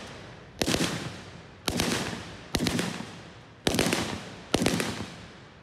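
Rifle gunshots: five sharp reports about a second apart, the last two each a quick double, every one trailing off in a long echo.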